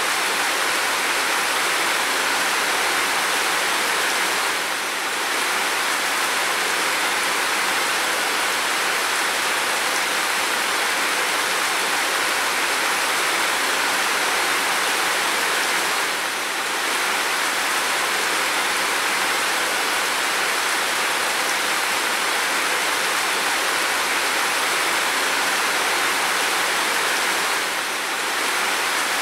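Steady heavy rain on a window and roof: a dense, even hiss with no single drops standing out. The level dips briefly three times, at about 5, 16 and 28 seconds in.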